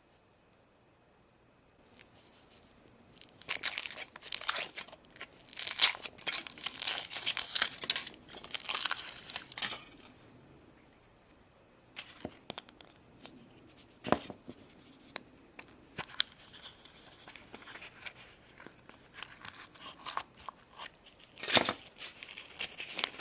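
Foil wrapper of a Kinder Surprise chocolate egg being torn and unwrapped, crinkling in a dense stretch for about six seconds. Quieter rustling follows, with a couple of sharp clicks.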